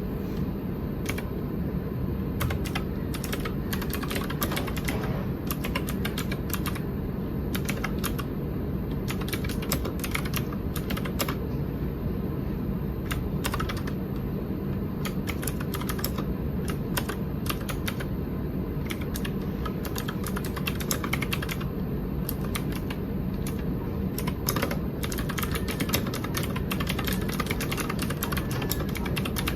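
Typing on a Keychron K6 mechanical keyboard with Gateron Blue clicky switches: a steady, irregular stream of sharp key clicks, several a second, over a constant low hum.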